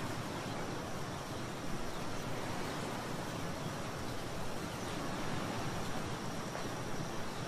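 Shallow water flowing over a sandy, pebbly bed: a steady, even rush with no distinct splashes, and a faint steady high tone running through it.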